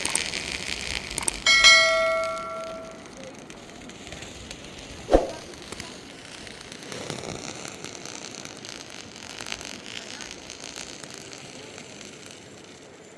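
A metal object struck once, ringing with several clear tones that die away over about a second and a half. A single short, sharp sound follows a few seconds later.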